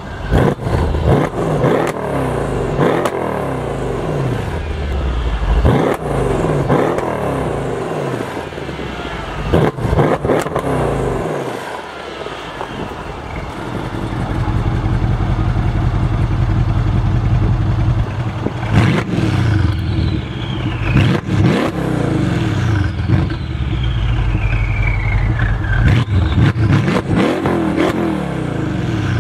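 2014 Mercedes E63 AMG S twin-turbo V8, parked and revved through open exhaust cutouts. Repeated throttle blips with sharp pops fill the first ten seconds or so, then it settles into a steady idle near the middle. Further revs follow, with high falling whistles between them.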